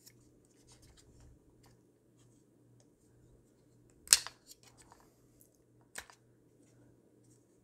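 Small clicks and light scraping of a tripod leg being handled as a bracket is worked out of the inside of the leg. A sharp click comes about four seconds in and another about two seconds later, over a faint steady hum.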